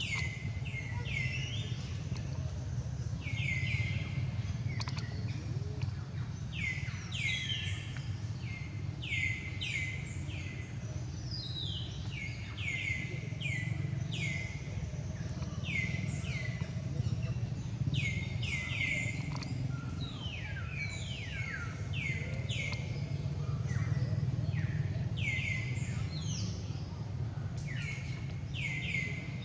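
Small birds chirping again and again: short falling chirps, often in quick pairs or threes, over a steady low rumble.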